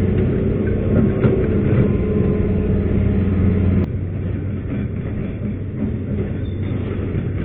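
Hitachi hydraulic excavator running, its diesel engine giving a steady low hum with machine clatter over it. A little past halfway there is a click and the sound drops abruptly to a quieter level.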